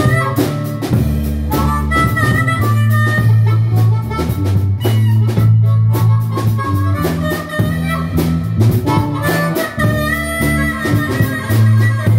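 Blues harmonica played into a microphone, wailing held notes that waver and bend, over a full band with a drum kit and a low stepping bass line.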